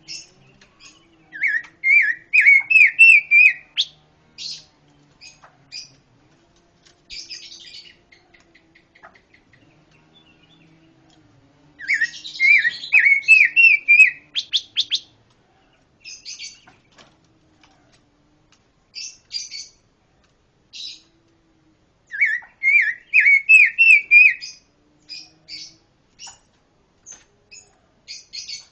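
A pancawarna songbird singing in full voice. Three bouts of quick repeated rising notes are the loudest parts, and short sharp high chirps fall in the gaps between them.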